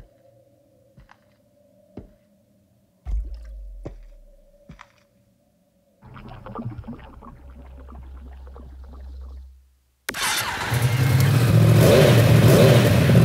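A few metal tool clinks and a heavier thud on a workbench, then engine oil pouring through a funnel into a Yamaha motorcycle engine. About ten seconds in, the motorcycle engine starts suddenly and runs loud.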